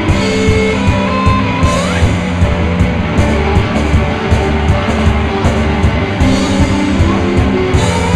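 A rock band playing live: electric guitars over a drum kit keeping a steady beat, with a note sliding upward just before two seconds in.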